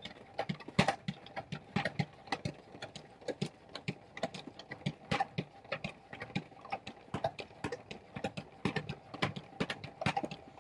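OXO salad spinner spinning a load of shredded cabbage: a steady whir under a fast, irregular run of clicks and rattles from the spinning mechanism, as the cabbage is spun dry.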